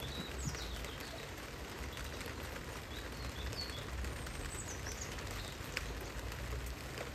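Steady rain falling on the clear corrugated roof panels of a garden cat enclosure, with a few short bird chirps now and then.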